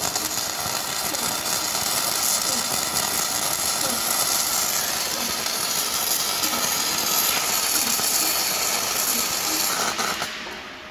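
Gasless flux-cored MIG welding arc from a Hanshin HST-200MIG welder, crackling steadily as the wire is fed automatically into the weld. It stops about ten seconds in, when the trigger is released.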